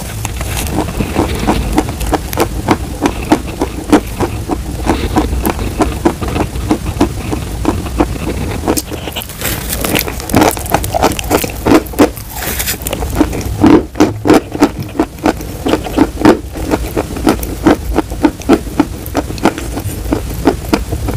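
Close-miked chewing of crumbly compressed chalk: a dense run of crisp crunches, several a second, with a couple of brief hissing sounds near the middle.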